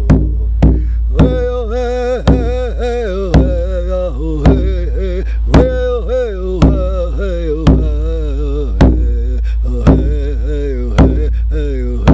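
A man singing a wordless chant in a wavering voice over a hand drum struck steadily, about once a second through the middle and about twice a second near the start and the end.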